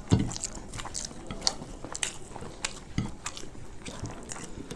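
Beef curry and khichuri being eaten: a run of wet chewing and mouth clicks, with a soft thump near the start and another about three seconds in.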